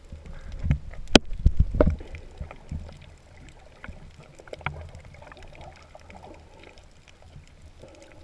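Underwater sound through an action camera's housing: a low muffled rumble of moving water, with a quick run of knocks and bumps in the first two seconds, the sharpest about a second in. After that a fainter wash with scattered small clicks.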